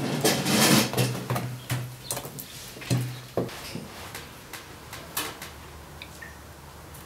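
Metal kitchen chair legs scraping across a tiled floor several times, with a low buzz in the scrapes, then scattered light clicks and knocks of tableware.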